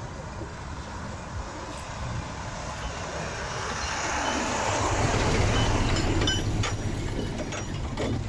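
Nissan Diesel V8 diesel truck driving past on a dirt road. Its engine and tyre noise grow louder as it approaches and are loudest about five seconds in. A few sharp clicks and clinks come as it goes by.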